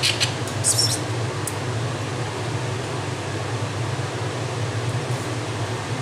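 Guinea pig biting and chewing a leafy green: a few short crisp crunches in the first second and a half and a faint one near the end, over a steady low hum.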